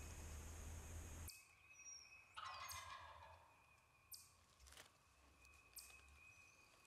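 A wild turkey gobbler gobbling once, a faint rattling gobble about two and a half seconds in, with a few short high bird chirps around it.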